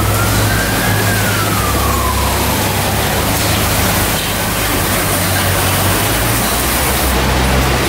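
Palletizing line machinery running with a steady hum and hiss. A motor whine rises in pitch, peaks about a second in, then falls away over the next two seconds as a full pallet of oil tins is driven along the roller conveyor.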